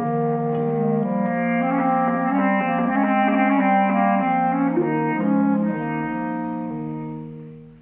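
Slow ambient instrumental music led by a bass clarinet holding low sustained notes over layered pitched tones, fading out near the end.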